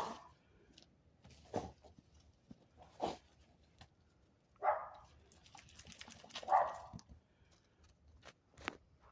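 A dog making short, sharp sounds, six of them, about one every one and a half to two seconds.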